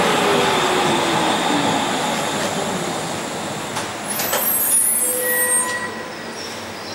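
Berlin U-Bahn A3-series small-profile train braking to a stop at a platform: rumble of wheels on rail, with a falling motor whine about a second in. High brake squeals come about four to five seconds in, and the noise dies down near the end as the train halts.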